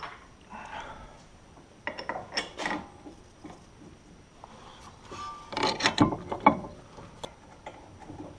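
Hand tools working on metal suspension and brake parts: bursts of clicking and clanking, one group about two seconds in and a louder one around six seconds.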